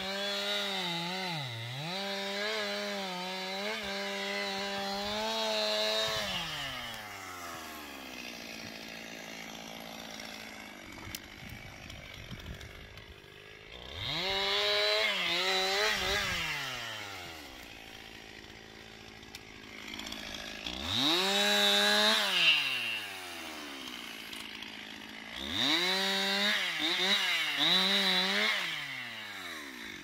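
Two-stroke chainsaw revving to full throttle in four spells and cutting, its pitch sagging briefly under load, and dropping back to a low idle in between. The longest spell is at the start, the others come about midway, two-thirds through and near the end.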